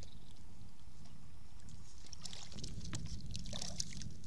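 Steady low rumble of wind on the action camera's microphone as the kayak drifts, with a few faint water splashes and clicks in the second half as a hooked peacock bass is brought up beside the kayak.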